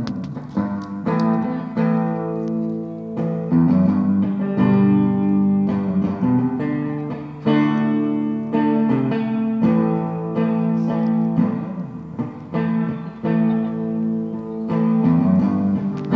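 Guitar jam: chords plucked and left ringing, with a new chord struck every second or two in a slow, meditative rhythm.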